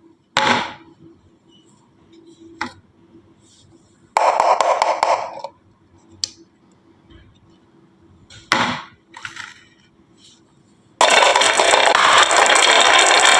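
Marbles on a wooden HABA marble run: a few separate clacks and a short clatter, then about eleven seconds in a continuous loud rattle as marbles roll down the track.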